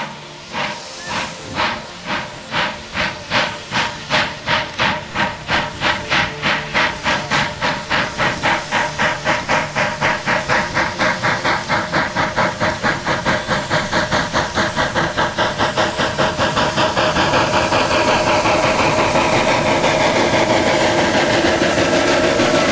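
TKt48 steam tank locomotive starting away, its exhaust chuffing in sharp beats that steadily quicken as it picks up speed, until they run together into a continuous rushing exhaust near the end.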